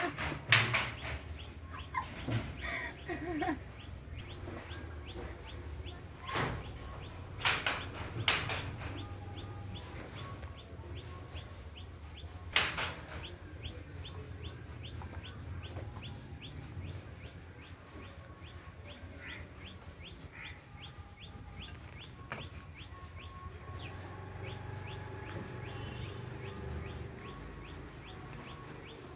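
A small bird chirping over and over, a quick, steady series of short high chirps that carries through most of the stretch. Several sharp knocks stand out in the first half, the loudest near the start and around twelve seconds in.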